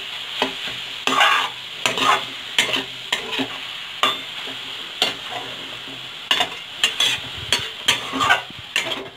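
Metal spatula scraping and knocking against a metal kadhai as a vegetable-and-soya momo filling is stir-fried over a steady sizzle. The scrapes and knocks come irregularly, about twice a second.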